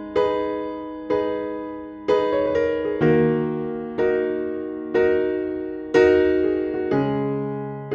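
Background music: electric piano playing slow sustained chords, a new chord struck about once a second and fading away.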